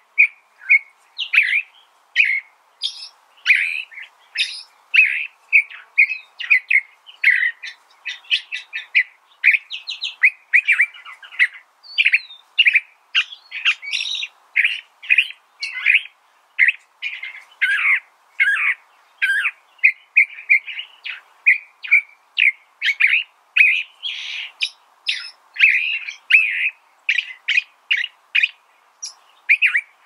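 California thrasher singing: a long, unbroken run of short, varied phrases, several notes a second.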